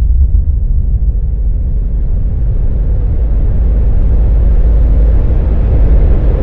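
A deep, loud rumble with a rising hiss that slowly builds in brightness and strength: a cinematic riser sound effect swelling under the film's title card.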